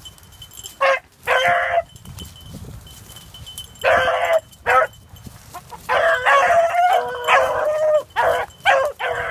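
Beagles baying on a rabbit's scent trail: repeated short bark-howls, a few spaced calls at first, then coming thick and almost without a break in the second half.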